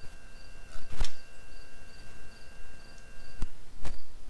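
Outin Nano portable espresso maker's pump humming steadily as it extracts a shot, then cutting off abruptly with a click a little over three seconds in as the extraction finishes. Other short clicks come about a second in and near the end.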